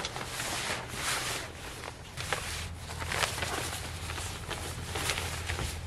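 A heavy fabric cover rustling and swishing in repeated pulls as it is dragged up and off a plastic IBC water tote.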